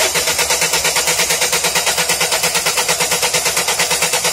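Peugeot Expert's 1.6 HDi (DV6UC) four-cylinder diesel turning over on the starter motor, a loud, steady, evenly pulsing cranking sound without the engine settling into an idle. It points to a crankshaft–camshaft synchronisation fault, traced here to a bent crankshaft sensor target on the pulley with the timing belt rubbing.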